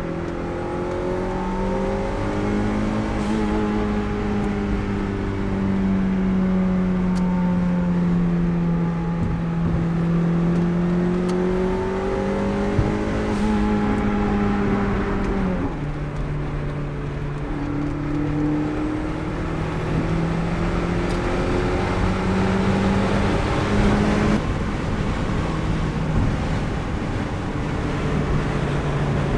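Turbocharged Mazda Miata's four-cylinder engine heard from inside the cabin while driving. Its pitch climbs and eases with the throttle and drops sharply at two upshifts, about halfway through and again a few seconds before the end. Tyre and road noise run underneath.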